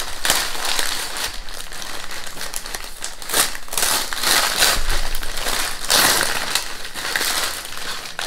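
Brown paper wrapping crinkling and rustling as hands unwrap a package, unevenly, louder in stretches around the middle.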